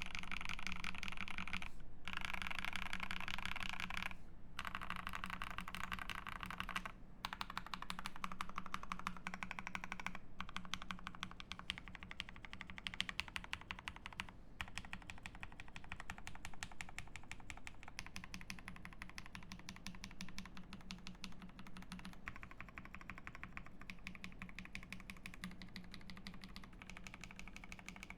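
Fast typing on a KBD67 Lite R3 mechanical keyboard with lubed NK Cream linear switches on a polycarbonate plate, with case and plate foam and PBT keycaps: a dense run of keystroke clacks, broken by short pauses in the first ten seconds.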